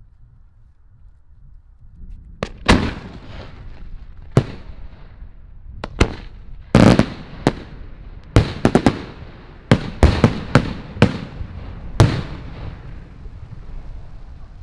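Aerial firework shells bursting: after about two seconds of quiet, a rapid series of more than a dozen sharp bangs, some in quick clusters, with the last one about twelve seconds in and a fading tail after it.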